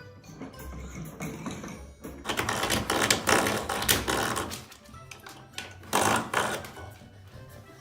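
Background music, with two loud stretches of clattering, scraping noise a couple of seconds in and again around the six-second mark.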